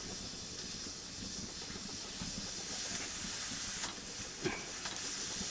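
Steady hiss of food cooking over the fire, starting abruptly just before and holding even, with faint low knocks beneath.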